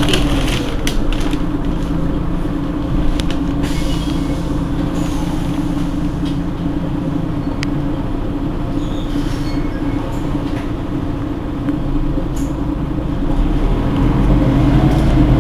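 Mercedes-Benz Citaro G C2 articulated bus idling at a stop, a steady low engine hum heard from close behind the rear of the bus, growing louder and deeper near the end.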